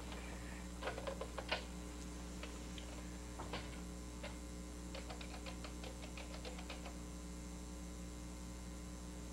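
Steady electrical hum with faint clicks of a corded telephone handset being handled and dialed. A few clicks come about a second in and a quick run of clicks comes around five to seven seconds in.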